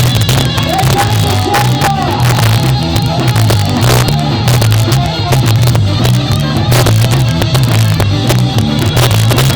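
Live ska band playing, with a heavy bass line and drums. The recording is loud and rough.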